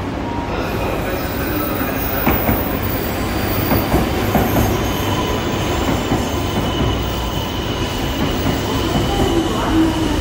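E2 series Shinkansen train in 200 series livery pulling into the platform: a steady rumble of the passing cars with a thin high squeal from the wheels and a few scattered knocks as it rolls in.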